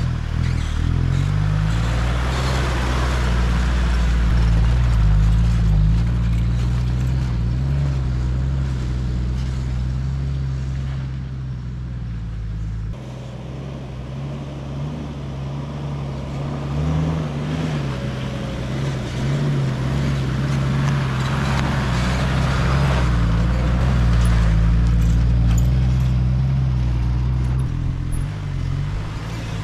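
Toyota Land Cruiser Troop Carrier driving over a rough 4WD track: a steady engine drone with tyre and body noise from the track. The engine eases off about halfway through and then pulls again.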